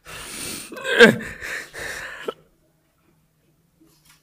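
A man crying: breathy sniffling with one sobbing cry about a second in that falls sharply in pitch.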